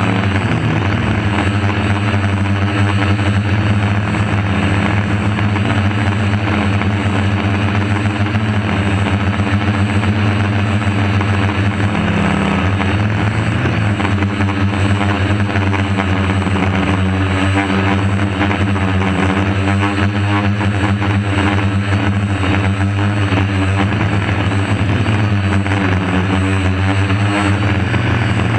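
DJI F450 quadcopter's four brushless motors and propellers buzzing steadily, heard close up from a camera on the drone's own frame. The pitch wavers slightly as the motors adjust their speed in flight.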